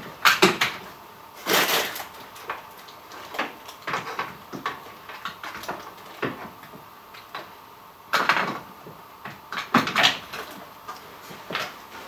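Clicks, knocks and rattles of a small top-handle chainsaw being handled and its bar and chain fitted by hand. They come in irregular bursts, loudest near the start and again about eight to ten seconds in.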